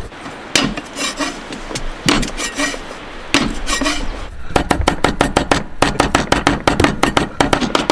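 Kitchen knife chopping on a wooden cutting board: a few scattered chops, then from about halfway a fast, even run of chops, several a second.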